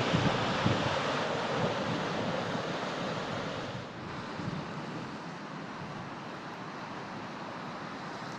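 Steady rush of wind on the microphone mixed with ocean surf washing below. The sound drops a step about four seconds in.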